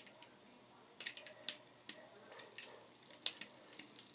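Light clicks and faint rattling from a homemade Lego-and-penny fidget spinner being flicked and spun by hand; a handful of sharp clicks, a few per second at most.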